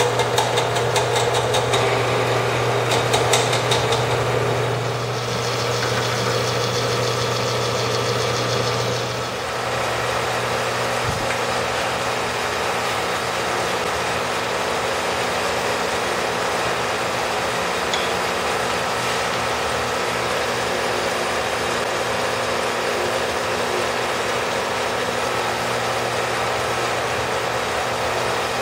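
Small horizontal metal-cutting bandsaw running, its blade cutting slowly through a thick block of 7075 aluminum: a steady motor hum under the noise of the cut. The sound shifts slightly about nine seconds in and then stays even.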